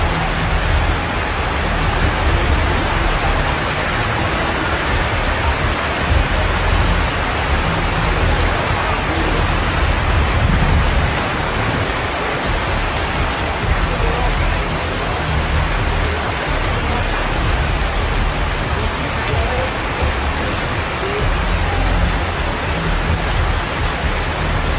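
Heavy rain hissing steadily, with irregular low rumbling gusts of wind on the phone's microphone.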